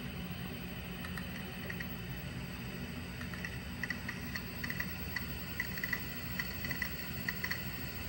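Quantum ProDrive 105S SCSI hard drive running with its cover off: the spindle motor gives a steady hum, while the head actuator ticks and chirps in quick irregular clusters as the drive seeks, a little about a second in and busier from about three and a half seconds. The drive is spinning and reading after its heads, held by sticky gummy rubber head stops, were freed by hand.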